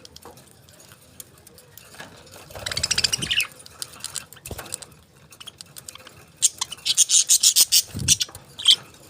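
Pet parakeets chirping and chattering in two quick, high-pitched runs, one about two and a half seconds in and a longer one from about six and a half seconds, with scattered short chirps and clicks between.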